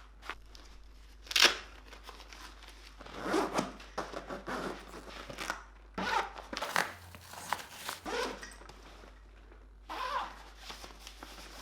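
Packaging being handled and opened: irregular bursts of rustling, tearing and crinkling, with one sharp loud snap about a second and a half in.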